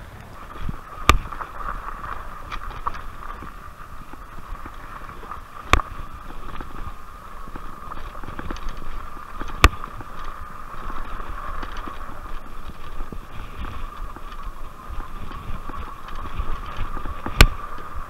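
Rad Rover e-bike's 750-watt hub motor whining steadily under power, over a low rumble from the tyres on the dirt trail. A few sharp knocks stand out as the bike jolts over bumps.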